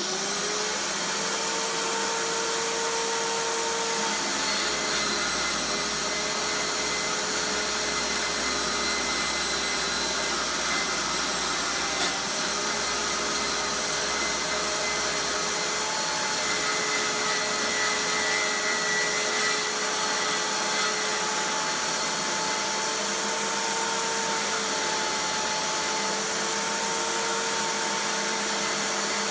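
Table saw running with a steady whine that wavers slightly in pitch, its blade plunge-cutting a 12 mm aluminium plate. One sharp click about twelve seconds in.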